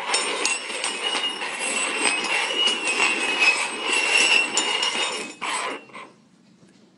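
Upturned metal cups being slid and shuffled over a wooden tabletop, a continuous scraping with a metallic ringing and small clinks, stopping abruptly about six seconds in.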